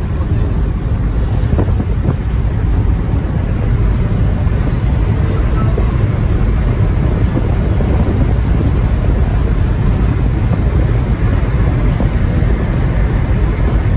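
Steady road and wind noise heard inside a moving car's cabin: a low, even rumble of tyres on the road surface at cruising speed.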